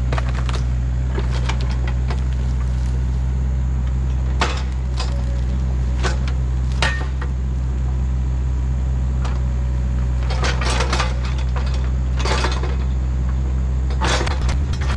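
Volvo EC35C mini excavator's diesel engine running steadily while the bucket digs, with scattered metallic clanks and scrapes, a few of them in quick clusters.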